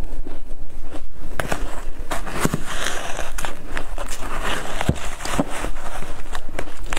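Close crunching of freezer frost being chewed, with many sharp crackles. Around the middle comes a longer rasping stretch as a metal spoon scrapes and scoops through the loose frost in the bowl.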